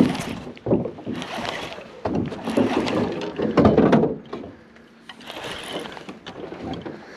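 Irregular bursts of rustling and water noise as a hooked largemouth bass is fought and reeled in on a baitcasting reel, with a few faint clicks. The loudest burst comes a little before the middle.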